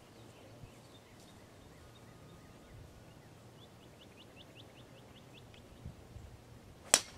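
A golf driver strikes a teed ball once, a single sharp crack near the end. Before it, under quiet outdoor ambience, a bird gives a quick run of about ten short high chirps, roughly five a second.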